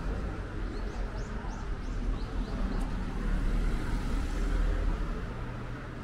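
Street ambience: a steady low rumble of road traffic. A small bird gives a quick run of about eight short, high chirps in the first half.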